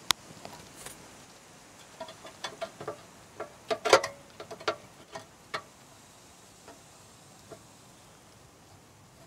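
Small metal clicks and taps of screws and a screwdriver against the hub and steel enclosure of a new Siemens meter base, as the hub's screws are fitted. A sharp click right at the start, a quick flurry of clicks from about two to six seconds in, loudest around four seconds, then only a couple of stray ticks.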